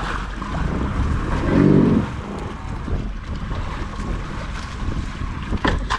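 Wind buffeting the microphone over sea water washing against a small outrigger fishing boat. A brief pitched sound stands out about a second and a half in, and a sharp knock comes near the end.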